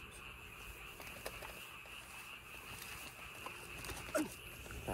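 A faint, steady, high-pitched night chorus of calling animals, with a brief faint call about four seconds in.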